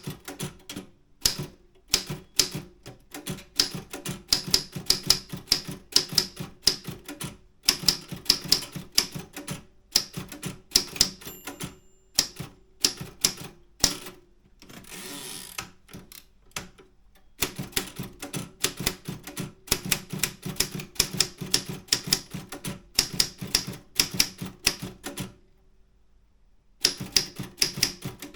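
Optima M10 manual typewriter being typed on: fast runs of sharp key strikes. About halfway through there is a brief smooth rushing sound, and a short pause near the end.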